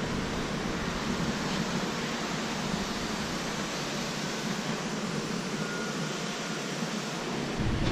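Steady, even background noise of a warehouse loading dock, like air handling or distant machinery, with no distinct knocks or voices. A low rumble comes in just before the end.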